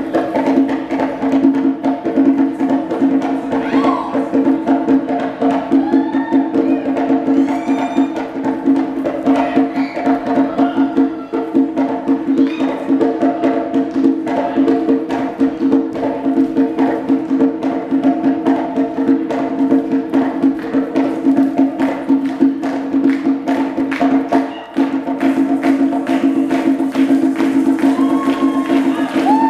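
Live samba percussion: a tall conga-style hand drum struck by hand in a fast, dense, steady rhythm over a sustained ringing tone, with a few short high gliding calls now and then.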